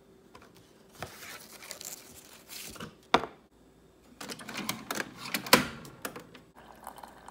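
Paper rustling and crinkling as a tea bag is handled, then a sharp click. Clicks and a loud snap follow as a Keurig single-serve brewer's lid is opened and shut, and near the end the brewer starts up with a steady hum.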